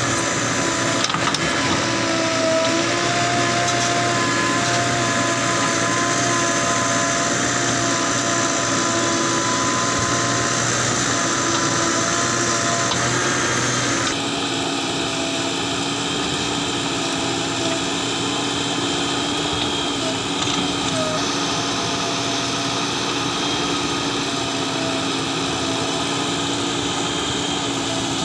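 Diesel engine of heavy earthmoving or truck machinery running steadily, a constant hum with a whine over it; the note changes abruptly about halfway through.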